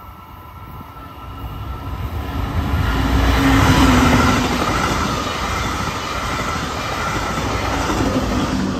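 Brightline passenger train passing at reduced speed. The lead Siemens Charger diesel locomotive's engine hum and wheel rumble build to their loudest about halfway in. The coaches' wheels rumble on the rails, then the trailing locomotive's engine passes near the end.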